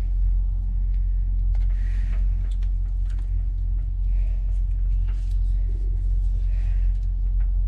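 Steady low rumble, with faint scattered clicks and rustles from cables being handled.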